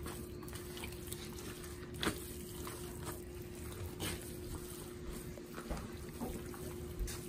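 Hands working wet, crumbly corn masa mixed with curds and melted lard in a plastic bowl: soft wet squelching and crumbling, with a few faint clicks, over a faint steady hum.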